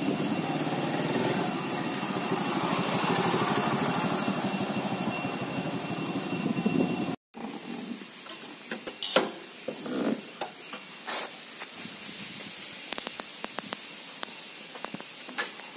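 Motorcycle engine running as the bike rides in, for about seven seconds, then cut off abruptly. After that, a quieter stretch of scattered clicks and knocks as the rider dismounts.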